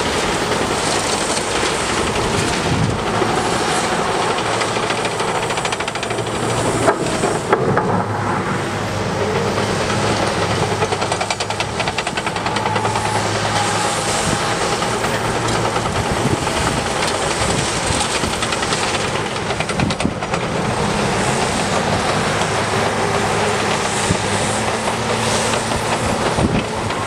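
Liebherr R 926 crawler excavator's diesel engine running steadily under working load while its bucket digs through a pile of crushed recycling material and dumps it into a steel dump trailer, the rubble rattling and pouring. A couple of sharp metallic clanks come about seven seconds in.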